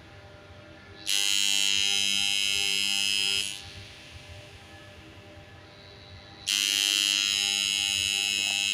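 Magnetic contactor humming with a loud, harsh buzz, twice, each time for about two and a half seconds: the buzz begins about a second in and again about two-thirds of the way through. This is the contactor's humming fault, which dismantling the contactor and cleaning it cured.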